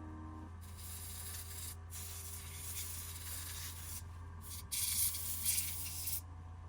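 Hissing noise in several stretches with sudden starts and stops, the loudest lasting about a second and a half near the end, over a steady low hum: work on a water-damaged MacBook Pro logic board, most likely cleaning the board.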